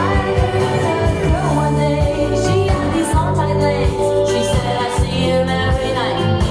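Pop rock song playing, a female voice singing over electric instruments and a steady drum beat.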